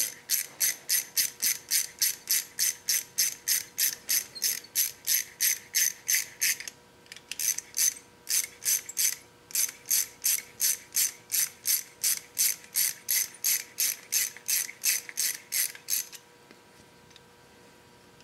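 Hand ratchet clicking rapidly, about four clicks a second, as the brake pad pins are backed out of a motorcycle disc brake caliper. The clicking pauses briefly twice and stops about two seconds before the end.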